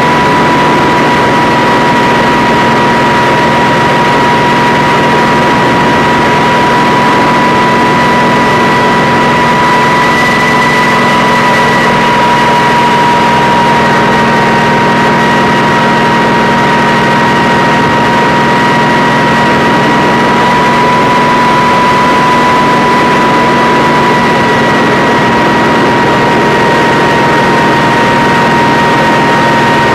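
Kamov Ka-26 helicopter's twin radial piston engines and coaxial rotors running steadily and loudly in flight, with a constant high-pitched whine over a dense engine hum.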